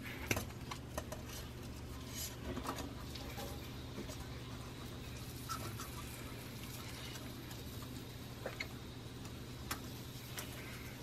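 Hobby side cutters snipping plastic parts off a model kit's runner: scattered sharp plastic clicks at irregular intervals, over a steady low hum.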